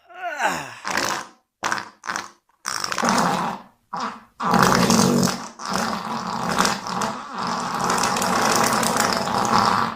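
Cartoon fart sound effect. A short falling groan opens it, a few short sputtering blasts follow, then one long rasping fart runs for the last five seconds or so.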